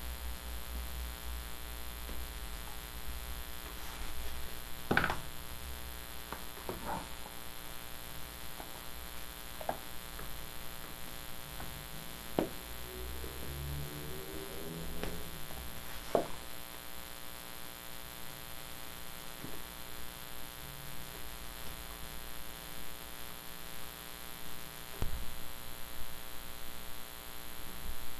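Steady electrical hum, with a handful of short, sharp clicks or taps spaced several seconds apart.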